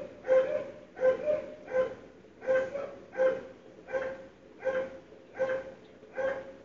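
A dog barking over and over in a steady rhythm, about three barks every two seconds.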